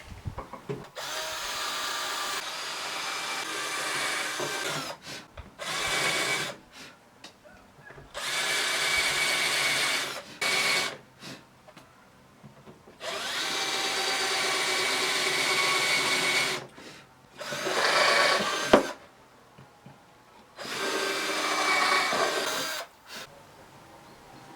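Power drill running in about six separate bursts of one to four seconds each, driving wood screws into the sled's pine and particle-board parts. One sharp click comes at the end of a burst near the end.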